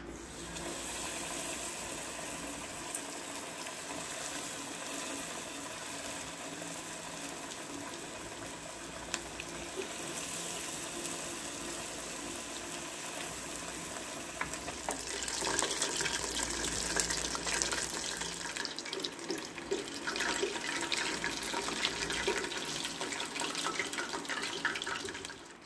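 Chicken wings deep-frying in hot oil in a stainless steel saucepan: a steady sizzle that grows louder, with much more crackling and popping, about fifteen seconds in.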